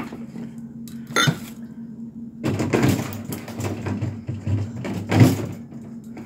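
Stand-up bags of frozen fruit chunks crinkling and rustling as they are handled, with a sharp click about a second in. A steady low hum runs underneath.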